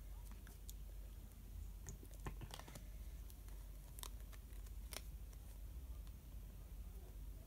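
Tarot cards being handled: faint card clicks and snaps, a quick run of them about two seconds in and two sharper ones about four and five seconds in.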